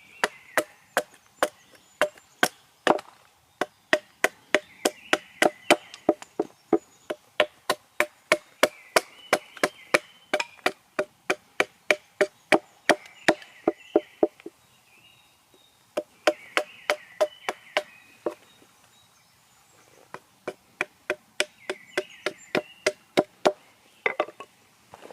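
Hatchet chopping a small piece of wild cherry wood in quick, light, even strokes, about three a second, in long runs with two short pauses. A bird sings short phrases every few seconds behind it.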